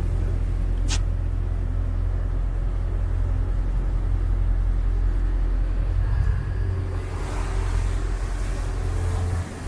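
Tour boat's engine running steadily, a low rumble, with a single sharp click about a second in.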